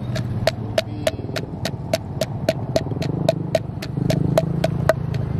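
Wooden pestle pounding sweet potato in a tall hollow wooden mortar, a steady knock about four times a second, with a low hum underneath.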